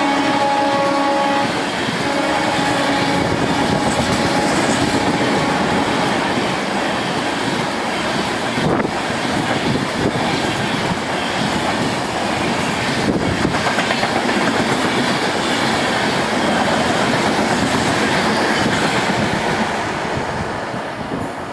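Express train's passenger coaches passing close alongside a platform at high speed: a dense, steady rush of wheels and air with the clickety-clack of wheels over rail joints and now and then a sharp click. The locomotive's horn is still sounding at the start and stops about a second and a half in, and the rush fades near the end as the last coach goes by.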